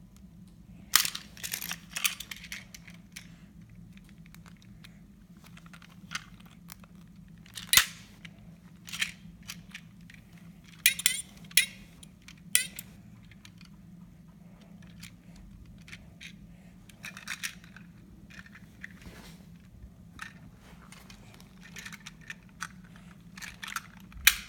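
Plastic toy parts being handled and set down: scattered sharp clicks and clacks with some rattling and crinkling, over a steady low hum.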